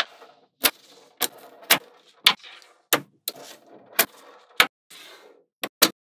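Small magnet balls clicking sharply as they snap together, about a dozen irregular clicks with faint scraping between them.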